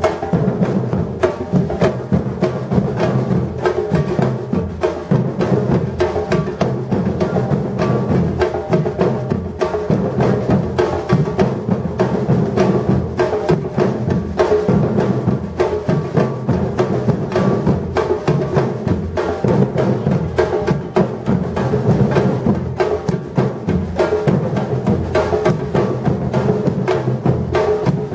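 Batucada percussion ensemble playing a steady, unbroken drum rhythm of dense, quick strokes.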